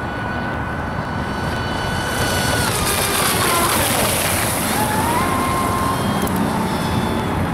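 Triton RC speedboat's motor whining at high speed, its pitch dropping as it passes close by and then climbing again about five seconds in, with a hiss of spray from the hull in the middle.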